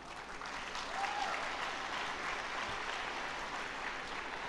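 Large audience applauding, a steady even clatter of many hands clapping.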